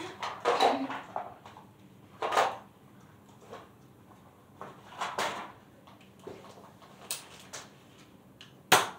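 Scattered short knocks and clatters of things being handled and moved, a few seconds apart, with a sharp click near the end.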